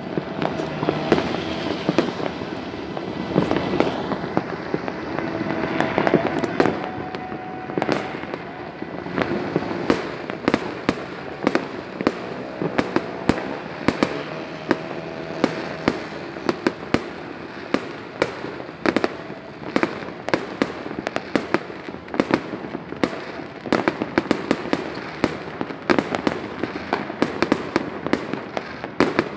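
Fireworks and firecrackers going off all over a city at once: a continuous din of distant booms with sharp bangs and pops several times a second, and a few faint held tones underneath.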